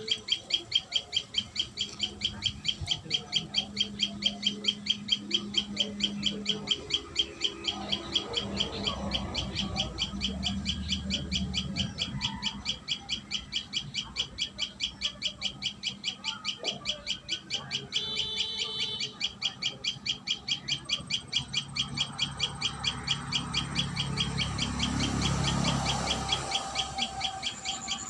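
Common tailorbird chirping: a high, sharp note repeated evenly several times a second without a break.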